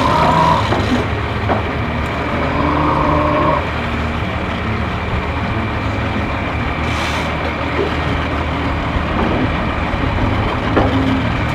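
Truck engine running steadily, over continuous outdoor background noise, with a few brief higher-pitched sounds in the first few seconds.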